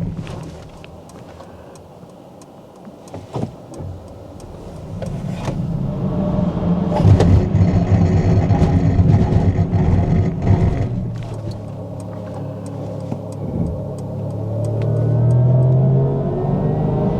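Mercedes EQS 53 4Matic+ electric car driving: low road and tyre rumble that swells as it picks up speed, eases off about two-thirds of the way through, then builds again with a rising electric-motor whine near the end. Scattered light clicks.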